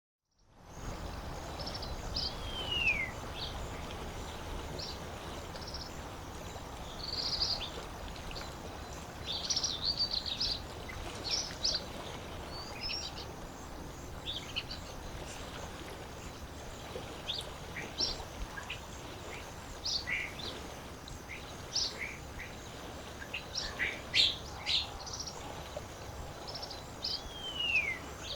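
Lakeside ambience fading in over the first second: a steady wash of water with many songbirds calling throughout in short chirps and whistles. A clear falling whistle comes about three seconds in and again near the end.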